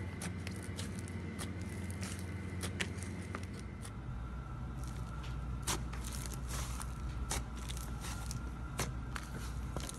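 Slime being squished and poked by hand, giving scattered sticky clicks and pops over a steady low hum.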